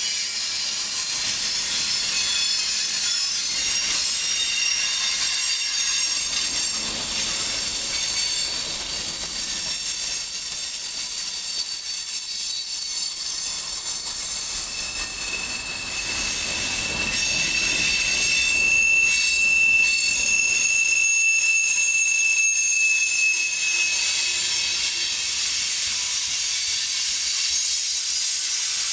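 Freight cars rolling past on steel rails: a steady rush of wheels on track, with long, high-pitched wheel squeals that hold one note and then another through the middle.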